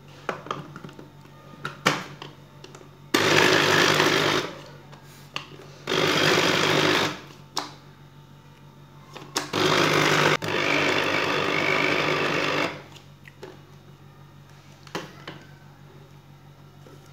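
Electric mini food chopper running in three pulses, the last and longest about three seconds, chopping raw beef with garlic and onion. Light plastic clicks are heard as the motor head is fitted onto the jar before the first pulse.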